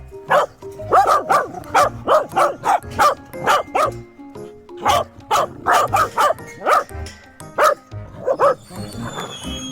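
Welsh corgis barking over and over, short sharp barks about two a second, with a brief lull partway through. Background music plays underneath.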